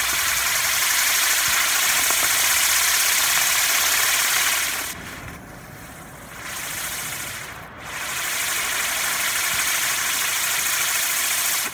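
Standard Fireworks whizz wheel burning, its spinning drivers giving a loud, steady hiss. The hiss drops away for a couple of seconds about five seconds in, swells briefly, comes back at full strength, then cuts off suddenly.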